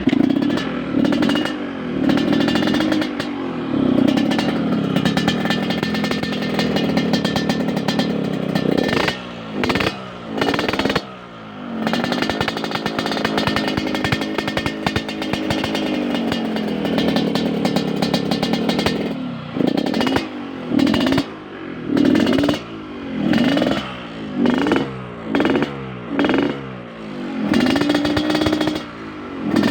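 Yamaha RX-King's two-stroke single-cylinder engine revving through an under-slung 'kolong' aftermarket exhaust with the deep raspy 'ngorok' (snoring) note. First comes a long run of held revs rising and falling, with a couple of quick throttle stabs in the middle. In the last ten seconds comes a string of short throttle blips, about one a second.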